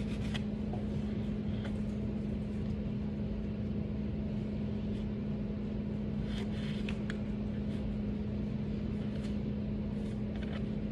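A steady electrical hum with one constant low tone over a soft rushing noise, with a few faint clicks and taps.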